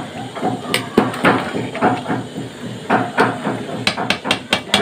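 Metal spoon knocking and scraping against a large metal cooking pot of rice, with scattered clinks and a quick run of clinks in the last second.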